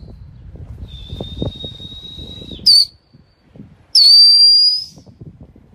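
A person whistling to call pigeons down: a long steady whistle about a second in, a short falling one right after it, then a louder, slightly rising whistle about four seconds in.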